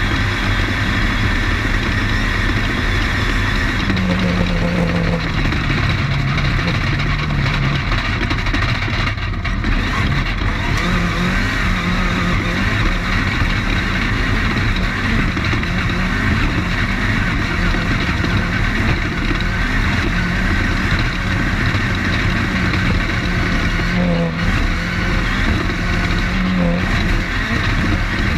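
Off-road race car's engine running continuously at speed, mixed with steady road and wind noise, heard from inside the car.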